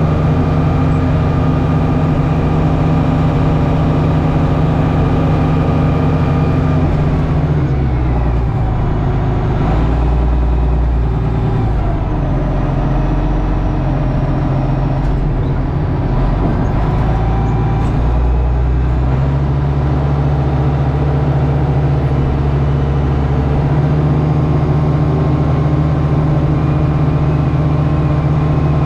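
Old John Deere loader's engine running while plowing compacted snow and ice. Its note drops and wavers from about 7 s to 19 s in, then settles back to a steady pitch.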